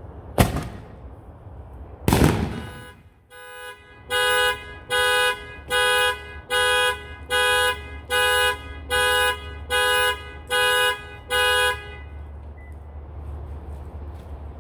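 Aerial firework shell exploding inside an HDPE mortar tube: a sharp bang, then about two seconds later a longer blast. Soon after, a car alarm set off by the blast sounds ten regular honks, about one every 0.8 seconds, then stops.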